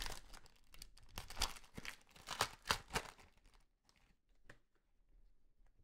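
Trading cards and their plastic wrapping being handled: a quick run of soft rustles, crinkles and small clicks that dies away after about three and a half seconds, leaving a few faint clicks.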